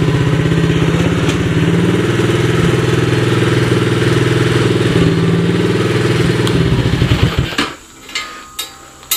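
2015 Coolster 125cc ATV's single-cylinder four-stroke engine idling steadily, then shut off about seven and a half seconds in, dying away quickly. A few small clicks follow.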